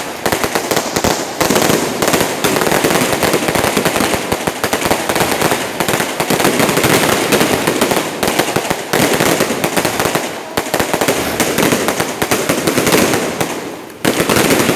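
Fireworks going off in a dense, continuous barrage of rapid bangs and crackling bursts, thinning briefly about ten seconds in and again near the end.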